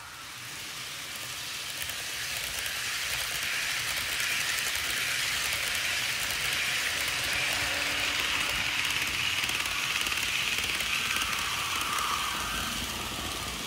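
HO-scale model train running past: the rumble of metal wheels on the rails grows louder, holds, then fades near the end.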